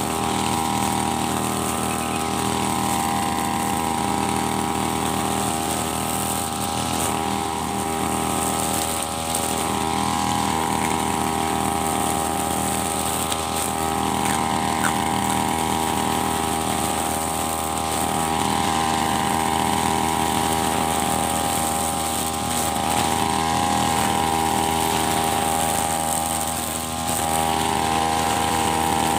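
Backpack brush cutter's engine running steadily at high speed while its trimmer head cuts grass, the note swelling and easing a little every few seconds as the head is swung from side to side.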